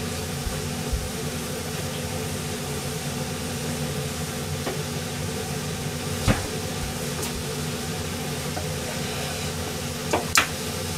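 Steady hum and hiss of a kitchen stove heating a frying pan of sliced onions in water, with light clicks about six seconds in and twice near the end.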